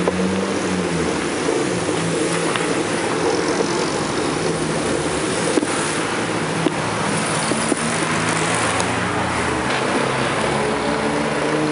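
Steady rush of wind and road noise from riding a bicycle along a street, with passing cars' engines humming underneath.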